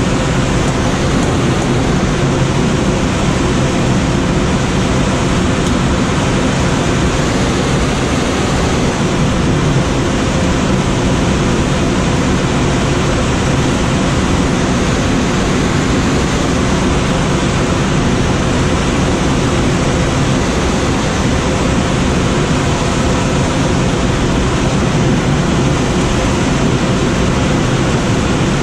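Steady rushing airflow noise in the cockpit of a Schweizer SGS 2-32 glider in flight, with a faint steady hum beneath it.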